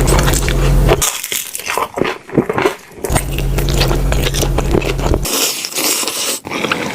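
Close-up eating sounds: chewing and biting food, with many sharp crackling and wet clicking sounds, and a hissy stretch of about a second near the end.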